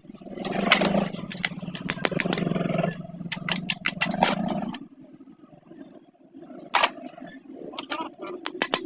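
Sewing machine running steadily for about five seconds, then stopping, followed by scattered clicks and knocks of the mechanism being handled.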